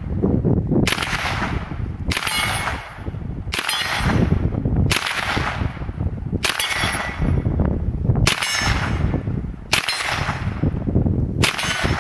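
Calico carbine fired eight single shots in slow, aimed fire, about one every second and a half, each shot followed by a long echo.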